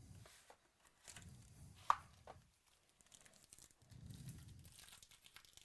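Faint rustling and tearing of trading-card packaging as a hobby box and its foil pack are handled and opened, with soft handling bumps and one sharp click about two seconds in.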